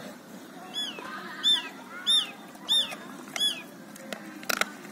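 Five loud, high chirps, each rising then falling in pitch, repeated about two-thirds of a second apart: the call of a small bird or animal. Near the end come a few sharp clicks and cracks from a pit bull chewing meat and bones out of its bowl.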